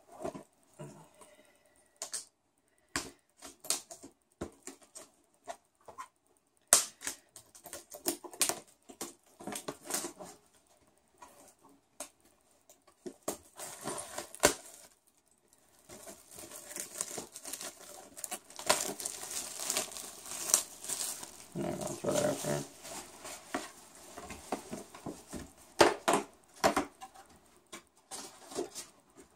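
Pokémon card box packaging being handled and opened by hand: scattered clicks and taps, with a longer spell of crinkling and tearing past the middle.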